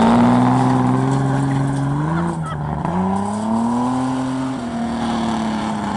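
Engine of a homemade race car driving off under power. Its pitch climbs and holds, dips about two seconds in, then climbs again and levels off.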